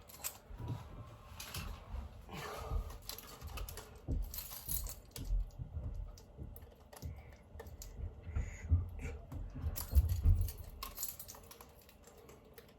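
Irregular light clicks and taps with scattered low thumps: small objects being handled, picked up and set down.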